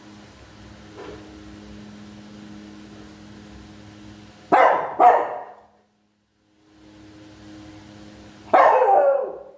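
Small Shih Tzu-type dog barking: two sharp barks in quick succession about halfway through, then one more near the end, over a steady low hum.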